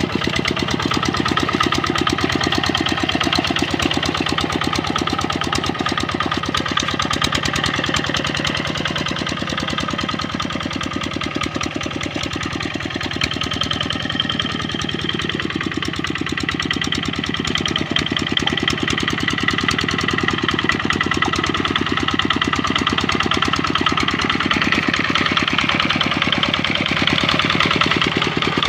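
Kubota RD65 single-cylinder diesel engine of a two-wheel hand tractor running steadily with a rapid, even firing knock. It eases off a little around the middle, then picks up again toward the end.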